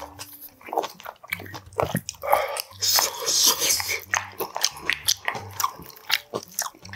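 Close-miked eating of tuna kimchi stew: chewing and slurping mouthfuls, with chopsticks and a spoon clicking against a glass bowl.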